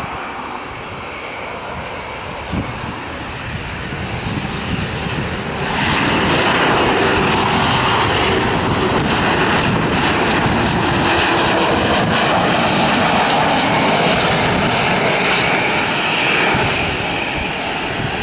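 Boeing 737-800 BBJ's CFM56-7B turbofan engines running at approach power as the jet flies in to land, a steady jet rumble with a faint high whine. It gets suddenly louder about six seconds in and eases slightly near the end.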